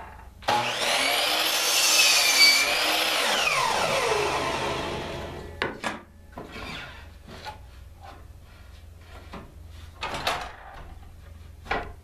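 A Skilsaw miter saw starts and cuts through a pine 1x6 board, its motor whining. The whine then falls steadily in pitch as the blade spins down. A few short knocks follow as the board is handled on the saw table.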